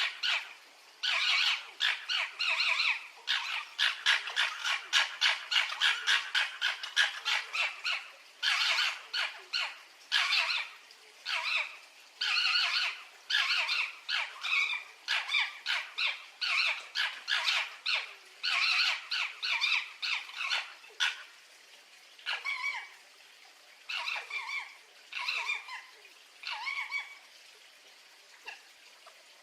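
Fox calling in runs of short, high calls, several a second. The calls thin out and grow fainter in the last third and stop shortly before the end.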